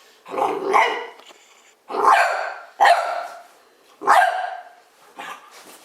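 Dog barking in play: four loud barks spread over about four seconds, then a couple of softer ones near the end.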